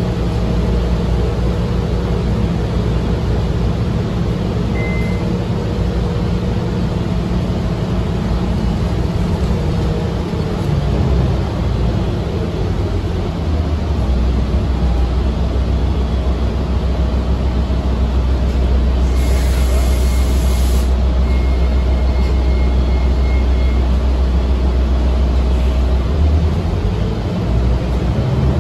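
City bus heard from inside the cabin while driving: steady engine and drivetrain drone with road rumble, growing heavier from about halfway through. About two-thirds in comes a short hiss of air, followed by a few faint high beeps.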